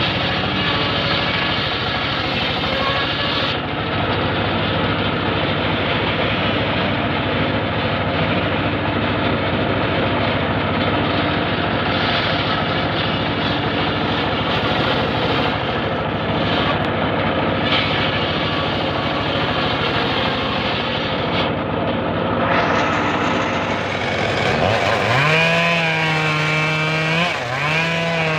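Homemade engine-driven table circular saw running and ripping timber slabs: a loud, steady, dense mechanical din. In the last few seconds the noise grows brighter, and a pitched whine rises and dips several times.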